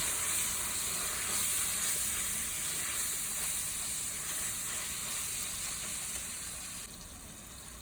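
Ground beef and taco seasoning sizzling in a pot: a steady frying hiss that fades gradually and drops a step about seven seconds in.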